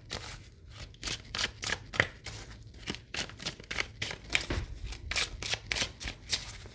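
A deck of tarot cards being shuffled by hand, the cards slapping and flicking against each other in quick, irregular strokes about three or four times a second.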